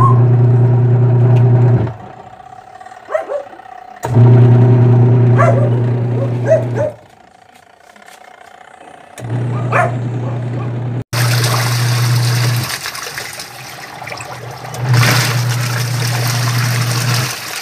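Washing machine wash motor driving the pulsator in runs of about two to three seconds with short pauses between, a steady low hum each time it runs, as the wash timer switches it on and off. From about eleven seconds in, water rushes into the tub alongside it.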